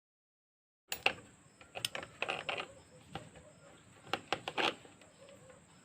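Small metallic clicks and clinks, starting about a second in, as a motorcycle speedometer cable is handled and fitted at its upper end.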